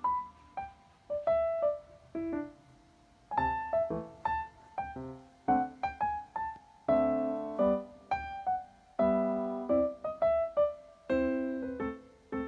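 Background music: a gentle solo piano melody of single decaying notes with occasional chords.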